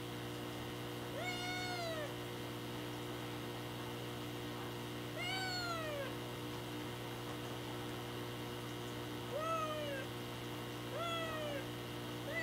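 A young black kitten meowing four times, each short call rising and falling in pitch, over a steady low hum. This is the constant crying the owner suspects comes from being in an unfamiliar place or searching for her mother.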